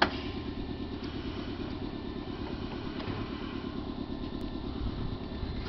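Nankai 7100 series electric train standing at the platform before departure, its underfloor equipment running with a steady, fast chugging hum. A sharp knock comes right at the start.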